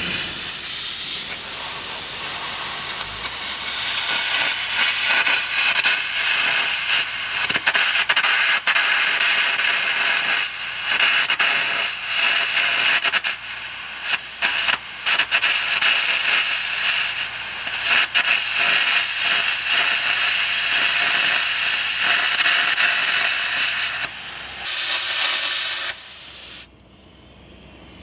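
Air carbon arc gouging: a copper-coated carbon rod arcing against the steel of a worn scraper ejector rail while a compressed-air jet blows the molten metal away, making a loud, rough, steady hiss. It breaks off briefly a few times where the arc drops and stops suddenly about a second before the end.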